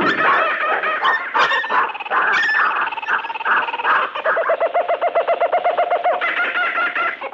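Bird-like animal calls from a sound-effects mix, in the manner of fowl clucking. The first few seconds hold irregular calls with sharp clicks; from about four seconds in comes a fast, even run of repeated calls, several a second.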